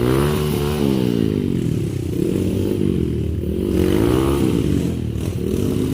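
Trail motorcycle engine running, its revs rising and falling repeatedly as the throttle is worked.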